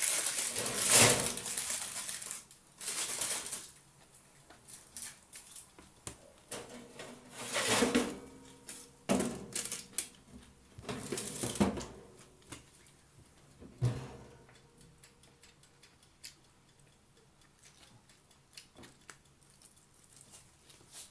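Close-up eating sounds: a person chewing and smacking on rice and raw vegetables eaten by hand, loudest in the first few seconds and again around eight, ten and twelve seconds in, with a single knock about fourteen seconds in. Toward the end only quieter clicks and rustles of vegetables being handled.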